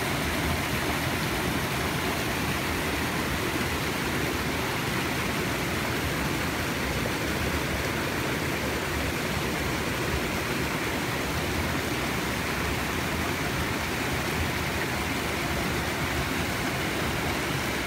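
Small forest creek running over rocks and through shallow riffles: a steady, even rush of water.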